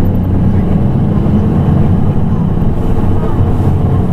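Nissan Diesel PKG-RA274KAN city bus's diesel engine running steadily with an even, low drone.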